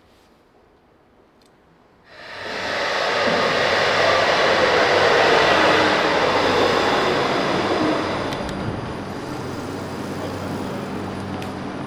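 Electric tram pulling in alongside the platform: after about two seconds of quiet, the rumble of wheels and motor with a whine comes in suddenly and grows loud, then eases to a lower steady hum as the tram stands at the stop with its doors open.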